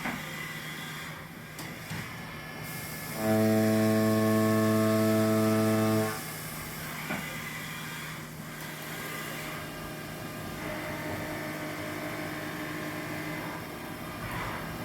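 Haas CNC vertical mill running a facing pass on a metal part, with a steady machine hum. About three seconds in, a loud, steady-pitched buzzing tone from the cut sets in, holds for about three seconds, then stops suddenly.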